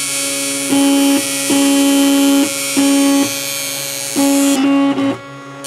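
Cupcake CNC 3D printer's stepper motors whining in steady pitched tones that start, stop and shift pitch with each move of the print head, dipping briefly near the end.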